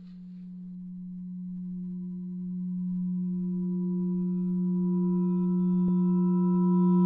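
A low, steady drone from a horror film's score, swelling steadily louder as more and more higher tones join in to build tension. A faint click comes about six seconds in.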